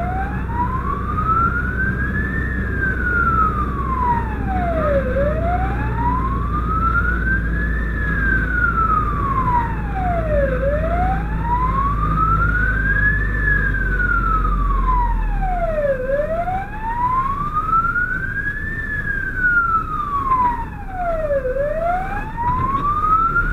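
Fire engine's wail siren sweeping slowly up and down in pitch, about once every five and a half seconds, heard from inside the cab over the truck's engine drone.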